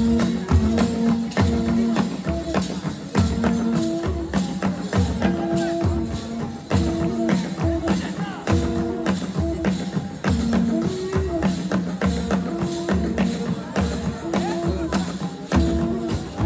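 Music with a steady beat and jingling, tambourine-like percussion over repeating held notes.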